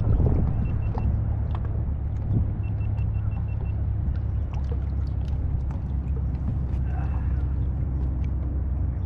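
Steady low rumble of a bass boat on the water, with faint scattered clicks and ticks. Two short runs of quick, faint high pips come about a second in and about three seconds in.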